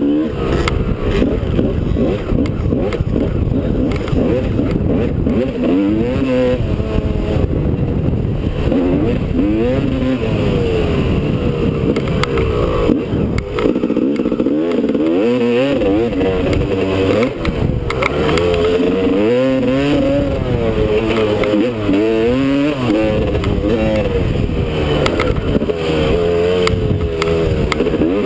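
Two-stroke Honda dirt bike engine, heard from a helmet-mounted camera, revving hard and falling back over and over as the throttle opens and closes through corners and jumps, with a low rumble underneath.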